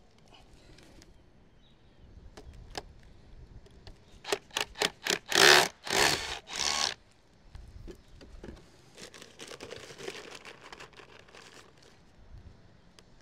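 Hand work on sheet lead flashing: a quick run of about five sharp taps, then three louder harsh scrapes, then a stretch of quieter scraping.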